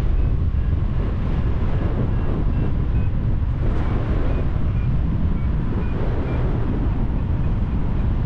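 Wind buffeting the microphone: a steady low rumble with gusty unevenness, and faint short high peeps scattered over it.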